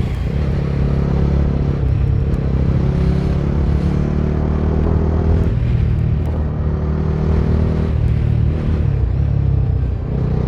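Bajaj Dominar 250's single-cylinder engine running at a fairly steady cruise while riding, the pitch holding level with a few brief dips, over a haze of wind and road noise.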